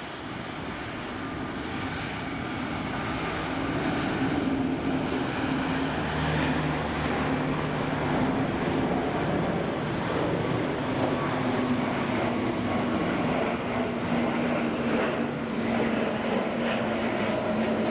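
Wizz Air Airbus A321neo jet engines, the sound building over the first few seconds and then holding as a steady roar with a low hum through it.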